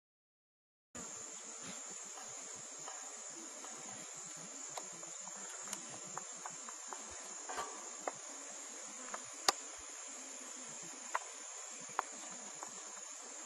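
Steady high-pitched drone of insects, such as crickets or cicadas, coming in about a second in after silence. Scattered sharp clicks and snaps sound over it, the loudest about two-thirds of the way through.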